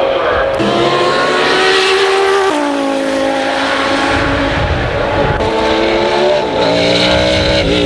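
Race car engine at full throttle, its pitch climbing and then stepping down at each upshift, several times.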